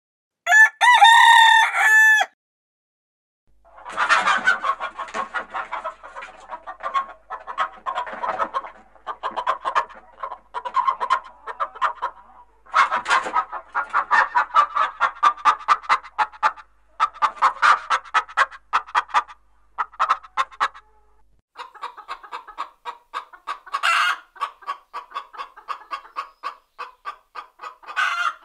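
Chickens: a rooster crows once at the start, a loud call of about two seconds, then hens cluck in long runs of rapid short notes, with two louder calls near the end.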